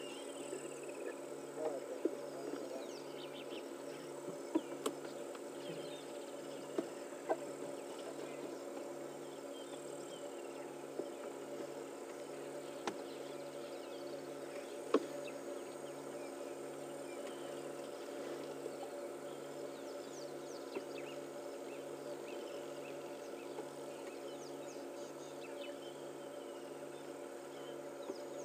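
Quiet bush ambience: faint insect and bird calls over a steady low hum, with a few soft clicks scattered through.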